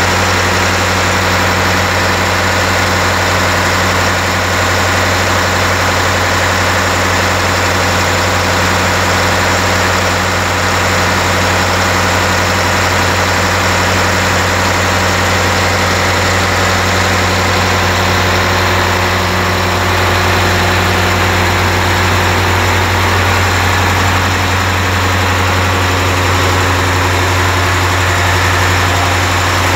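Reconditioned V-type marine diesel engine running steadily on a test run, heard up close as a low, even drone with no change in speed.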